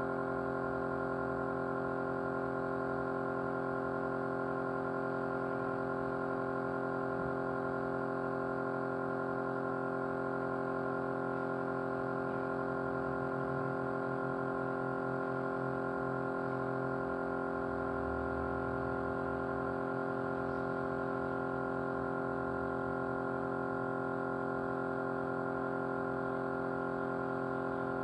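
A small motor running at a constant speed, giving a steady vibrating hum made of many fixed tones that hold the same pitch throughout.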